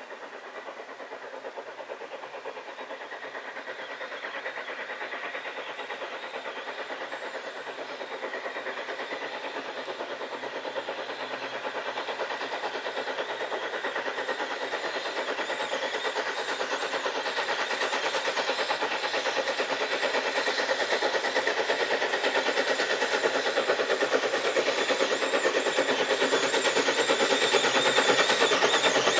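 LNWR Coal Tank 0-6-2T steam locomotive hauling a train, its rapid exhaust beats growing steadily louder as it approaches.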